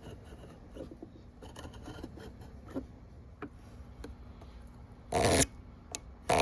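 Hand tools and wood being handled on a workbench: small knocks and light scrapes, then two short, loud scraping strokes, one about five seconds in and one near the end.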